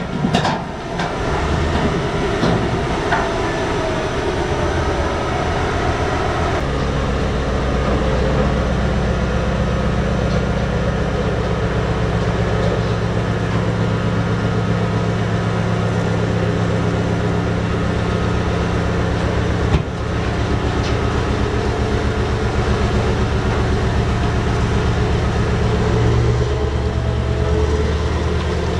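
The BelAZ 75710 mining dump truck's big MTU 16-cylinder diesel running hard while the dump body tips up. There are a couple of sharp knocks at the start; about six seconds in, the engine settles into a steady, heavy drone under load that holds to the end.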